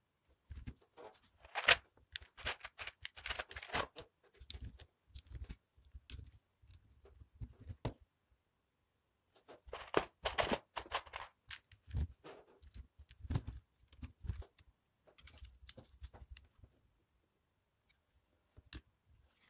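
Hands rummaging through a plastic tray of LEGO parts and handling the pieces: irregular clicking, clattering and rustling of plastic. It comes in two stretches with a short pause about halfway.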